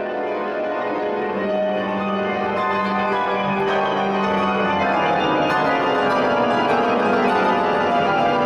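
Several pianists playing grand pianos together in a phasing piece: repeated figures overlap into a dense, ringing wash of notes that grows gradually louder.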